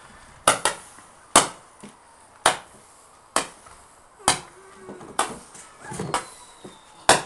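A ground-set firework firing a steady string of sharp bangs, about one a second, some eight shots in all, typical of a repeating shot firework such as a roman candle or multi-shot cake.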